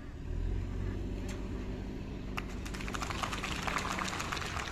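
A crowd starts clapping about halfway in, dense quick claps that carry on to the end, over a low steady rumble.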